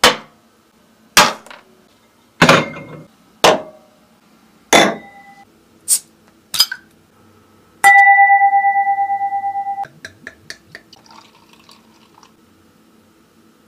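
Dishes set down on a wooden desk: five hard knocks over about five seconds, then two lighter metal clinks. About eight seconds in, a beer bottle cap is levered off with an axe blade: a loud ringing metallic clang with two steady tones that dies away over about two seconds. The cap follows with a quick run of small rattling ticks, and then comes faint beer pouring into a glass.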